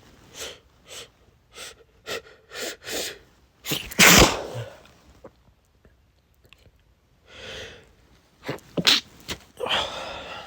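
A man sneezing from a pollen allergy: a run of short, sharp bursts in the first few seconds, one loud sneeze about four seconds in, then more sneezes near the end.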